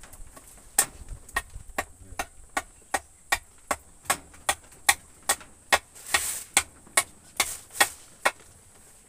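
Steady blows of a tool on wood during hut building, about two and a half sharp strikes a second for some twenty strokes, with a short rustling swell about six seconds in.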